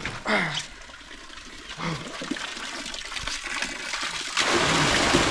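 Water gushing out of a fish pond's overflow outlet, where a net has just been tied on; the rush of water comes in suddenly and loudly about four seconds in and keeps going.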